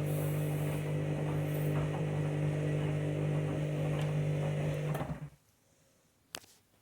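Washing machine drum motor running during the main wash, a steady hum that stops abruptly about five seconds in as the drum pauses. A single short click follows.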